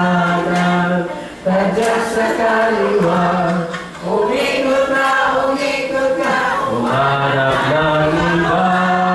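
A group of people singing a simple song together in unison, with long held notes and two brief breaks between phrases.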